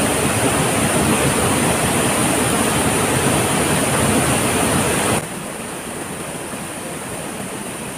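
Steady rush of a waterfall's falling water. About five seconds in it drops suddenly to a fainter, steady rush.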